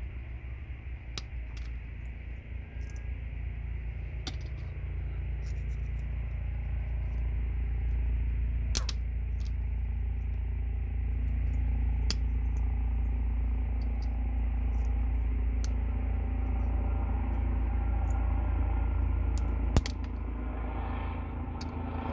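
Scattered sharp clicks of small metal pins and plastic parts being pried and snapped out of a network patch panel, over a steady low rumble that slowly grows louder.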